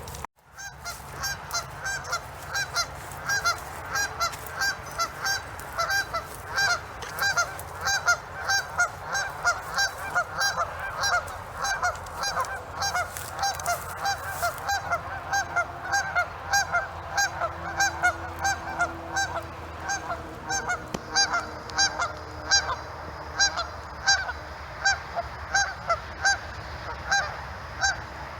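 Geese honking continuously, a rapid, steady series of short calls, several a second.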